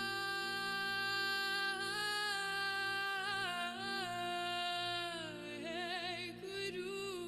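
Meditation music: a high sung melody holding long notes, sliding slowly between pitches, with a wavering ornament about six seconds in, over a steady low drone.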